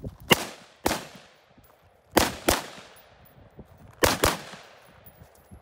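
Six rifle shots from a lightweight AR-15 with a 16-inch Ballistic Advantage pencil barrel, fired as three pairs. The first two shots come about half a second apart, and the last four come as two quick double taps about two seconds apart. Each shot is a sharp crack with a short echoing tail.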